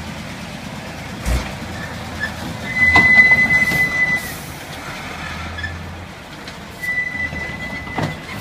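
Mercedes-Benz Unimog diesel engine working hard under load, towing a loaded hay-bale trailer through mud. A high steady whistle comes in twice, loudest about three seconds in and again near the end, with a few knocks.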